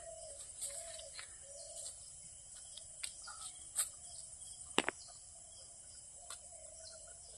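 A steady high-pitched insect chorus, with scattered faint clicks and a louder sharp click about five seconds in.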